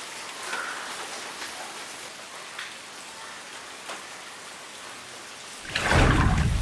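Steady rain falling, an even hiss with scattered individual drop ticks. Near the end comes a sudden loud low surge of noise about a second long, much louder than the rain.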